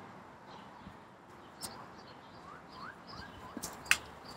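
A bird chirping: a quick run of short rising chirps starting about halfway through, over faint background noise. A sharp click near the end is the loudest sound.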